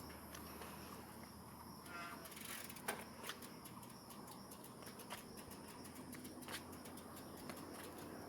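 Faint outdoor background with scattered light clicks and ticks, and a short high chirp about two seconds in.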